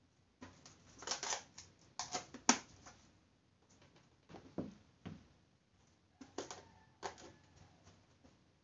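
Plastic food storage boxes knocking and clicking as they are lifted out of a refrigerator and set down on a table: a series of light, irregular knocks with short rustles between them, the sharpest about two and a half seconds in.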